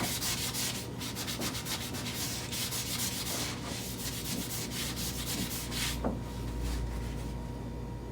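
Japanese-steel paring knife being stroked back and forth on an oiled sharpening stone: a quick run of scraping strokes that grows fainter about six seconds in.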